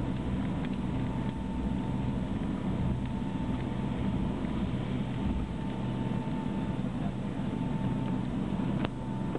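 Steady low rumble inside a jet airliner's cabin as it rolls along the runway after landing, with a faint steady whine above it and one faint click near the end.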